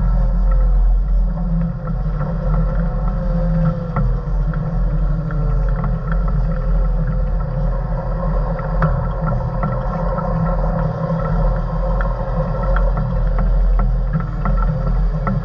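Motor grader's diesel engine running steadily, heard from inside the cab, with frequent small rattles and clicks from the machine.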